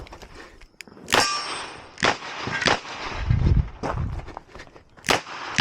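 Ruger GP100 revolver firing .38 Special: several sharp shots spaced roughly a second apart, with a ringing metallic clang about a second in.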